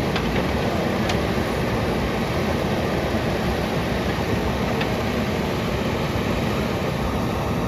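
JCB backhoe loader's diesel engine running steadily, with a few faint ticks.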